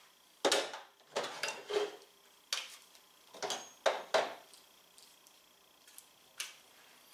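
Metal sockets and hand tools clinking and clattering on a workbench while a Torx socket is picked off a socket rail. There is a string of sharp clinks, most in the first few seconds, and one more near the end.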